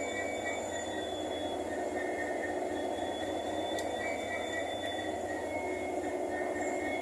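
A train running on rails: a steady rumble, with thin high whining tones that come and go over it.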